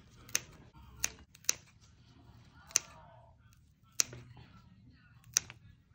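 Scissors snipping through houseplant stems to take cuttings: six sharp snips at irregular intervals, roughly one a second.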